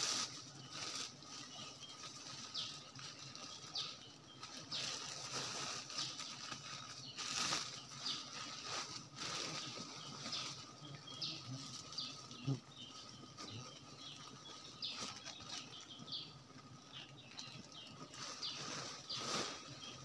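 Branches and leaves rustling in irregular bursts as a wild honeybee comb is smoked and worked in a tree, with many short high bird chirps throughout.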